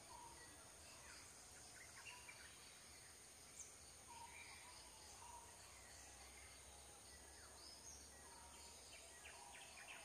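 Faint outdoor ambience: scattered short bird chirps over a steady high hiss, with one sharp high chirp about three and a half seconds in.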